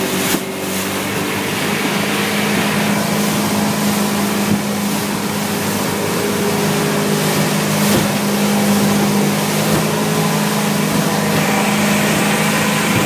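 A boat's engine running steadily, a constant hum with no change in speed. A short bump or knock is heard near the start and again about eight seconds in.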